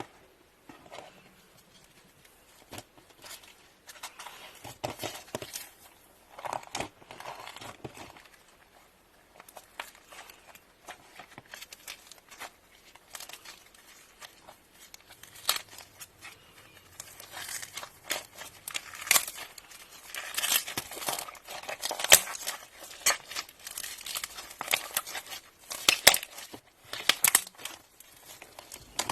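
Hands kneading and stretching slime: irregular sticky clicks and crackles, growing busier and louder in the second half.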